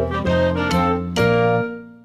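Cheerful children's background music on a keyboard, with notes struck in quick succession and a final chord about a second in that dies away.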